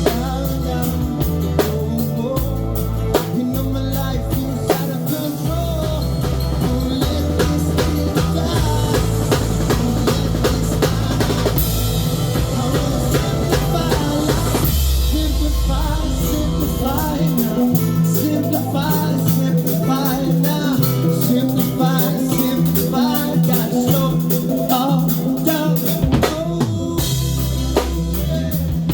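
Live band music: a drum kit keeping a steady beat over bass notes and melodic instrument lines.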